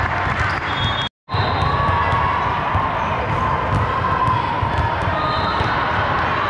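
Spectators chattering and cheering in a gym, with sharp volleyball hits and sneakers squeaking on the court. The sound cuts out completely for a moment about a second in.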